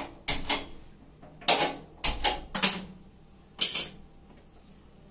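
Metal cookware clattering on a gas stove: about seven sharp knocks and scrapes with a brief metallic ring, in clusters roughly a second apart, as pots and a kadai are handled.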